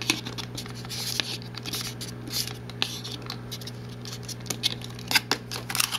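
A twist tie being untwisted by hand from a cardboard packaging insert: irregular scratchy rustling and small clicks of the tie and card, over a steady low hum.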